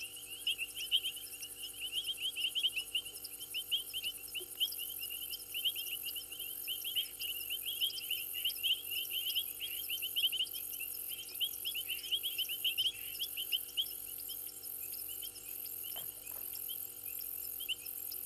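Night chorus of frogs and insects: many short, high chirps in a rapid, continuous overlapping stream, with a higher pulsing insect trill above. A faint steady hum runs underneath.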